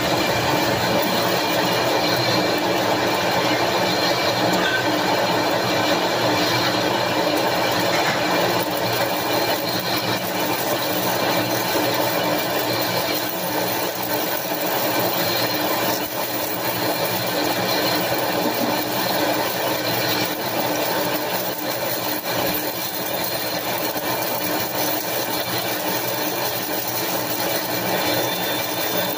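Metal lathe running steadily with its chuck spinning while the cutting tool turns a metal workpiece, a continuous machine hum with several steady tones.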